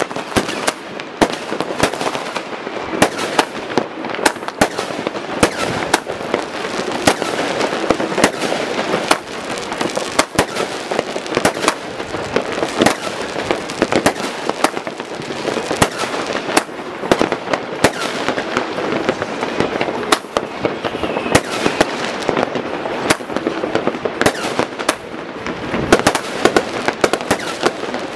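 Massed amateur New Year's Eve fireworks, rockets and firecrackers going off across a town: a constant crackling din with many sharp bangs every second.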